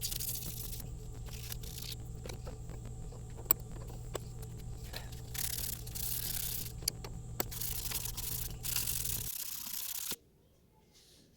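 Sandpaper rubbed by hand over a stabilized wormy maple knife handle in uneven strokes about a second long, with a few small ticks and a steady low hum underneath. It all stops abruptly about ten seconds in.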